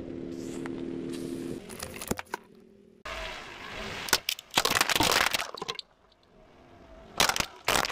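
A car tyre crushes plastic jugs filled with coloured liquid. A dense run of cracking and crunching breaking plastic comes about four to six seconds in, with a few more sharp cracks near the end. Before that, a steady engine hum and a couple of cracks as the tyre rolls over a plastic bottle pump.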